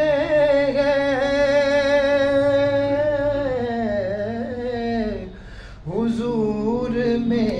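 A man's voice singing a naat unaccompanied into a microphone. He holds a long, wavering note that slides down, breaks off briefly about five seconds in, then takes up another long held note.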